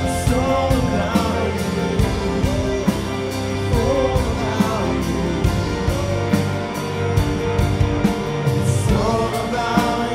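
Live worship band playing: electric and acoustic guitars, bass and drums with a steady beat under sustained chords, and a voice singing over them.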